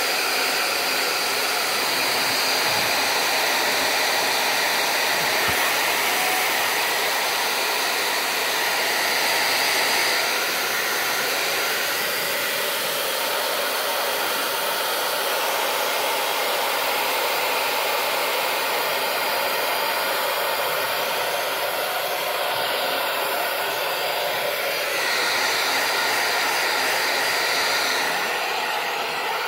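Handheld hair dryer blowing steadily at close range, with a high whistle that comes and goes as the airstream shifts.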